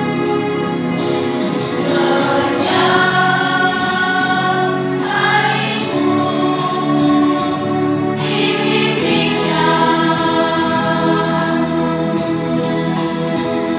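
Primary-school children's choir singing, holding each sung note for a second or more.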